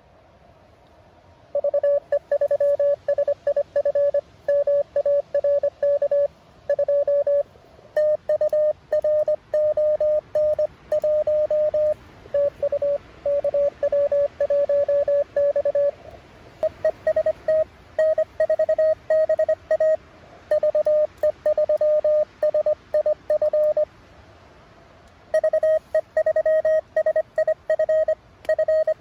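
Morse code (CW) from a Mountain Topper MTR-4B ham transceiver: one steady mid-pitched tone keyed on and off in quick dots and dashes, carrying a contest exchange of name and serial number. The keying stops briefly twice, for a moment about halfway and for about a second and a half later on.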